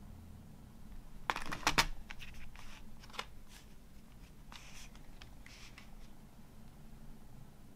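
Hands unfolding a cardboard CD digipak with plastic disc trays: a quick cluster of sharp clicks and taps about a second and a half in, the loudest moment, then scattered lighter clicks and a soft papery rustle around five seconds in.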